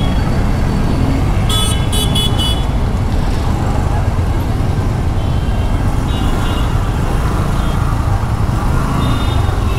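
Steady rumble of riding a scooter through traffic, with a quick run of about four short, high-pitched horn toots about a second and a half in and fainter toots later.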